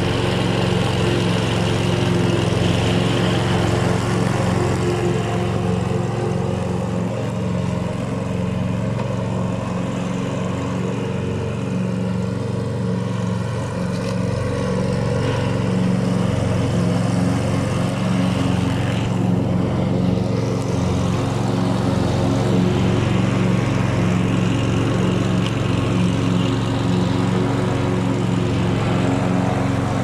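Stiga riding lawn tractor's engine running at a steady speed as it drives across the grass.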